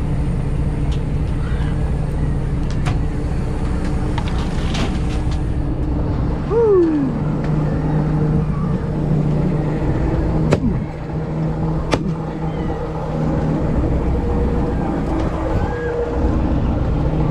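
A fishing boat's engine running steadily, with a few sharp knocks and a short falling squeal about six and a half seconds in.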